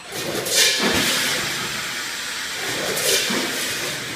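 Vertical pouch packing machine running through its bagging cycle, with a sharp hiss of air twice, about two and a half seconds apart, over a steady mechanical clatter.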